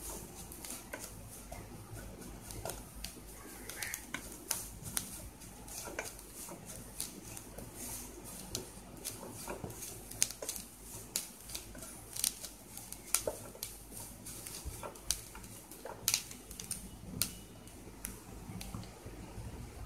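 Wooden spatula scraping and knocking against a non-stick kadai as chopped vegetables and wheat flour are stirred and roasted: an irregular run of clicks and scrapes, with a few sharper knocks in the second half.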